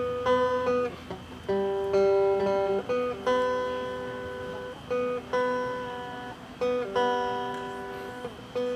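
Acoustic guitar playing an instrumental tune: picked notes and chords that start sharply and ring out, fading away before the next.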